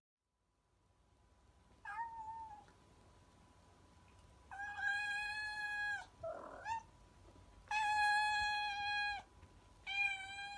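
Domestic cat meowing: a short call about two seconds in, then two long drawn-out meows of about a second and a half each, and another beginning near the end.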